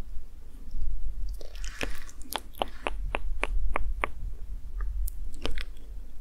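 Close-miked ASMR clicking: a run of about seven sharp clicks, three or four a second, about two seconds in, after a soft rustle, with one more click later. A steady low hum runs underneath.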